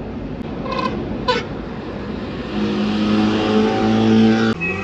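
A car engine is revved and held at steady high revs for about two seconds, growing louder, then cuts off suddenly. Two brief high squeaks come about a second in, over steady road noise.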